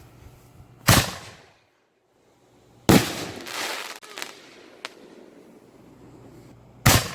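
MegaBanger Pro 5-inch artillery shells going off in sequence from a fused rack: three loud bangs about two and four seconds apart, the second followed by a brief crackle and a couple of smaller snaps.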